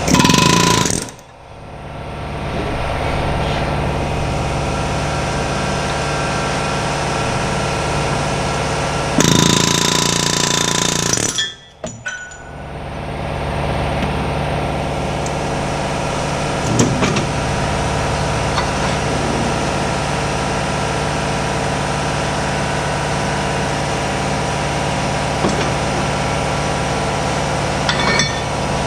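Pneumatic air hammer firing in two loud bursts, a short one at the very start and a longer one of about two seconds near the ten-second mark, over a steady mechanical hum.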